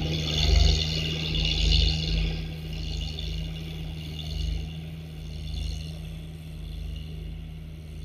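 Engine of a mini ride-on tandem road roller running steadily, fading as the roller drives away across a lawn. A higher hiss rides over the engine for the first few seconds, then dies away.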